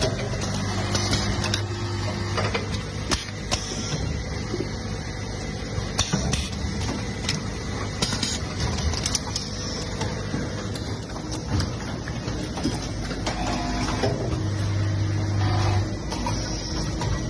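Automatic washing-machine inlet hose assembly, crimping and testing machine running: a steady mechanical clatter with scattered sharp clicks and knocks, and a low hum in the first couple of seconds and again near the end.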